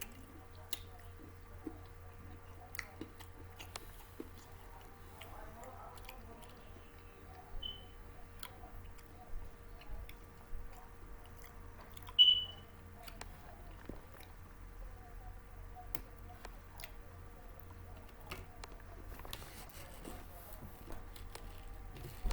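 A person chewing and biting snack food close to the microphone, with scattered small crunches and mouth clicks. Two short high-pitched tones sound, about 8 and 12 seconds in, the second louder, over a steady low hum.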